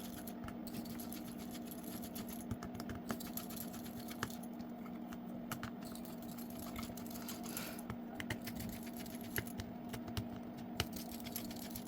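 Light, irregular clicks and taps of a small screwdriver and tiny screws as the screws of an Oppo A3s smartphone are undone, over a steady low hum.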